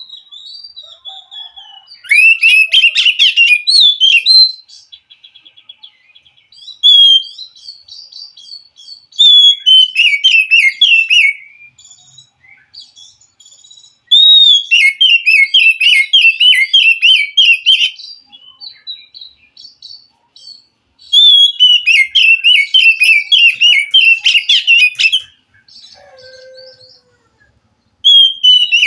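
Oriental magpie-robin singing: several loud bouts of fast, repeated whistled notes, each a few seconds long, with quieter scattered notes between them.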